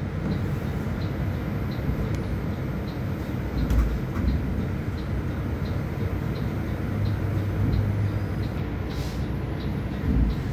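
Heard from inside a city bus on the move: steady engine and road noise, with a low thump about four seconds in and another near the end.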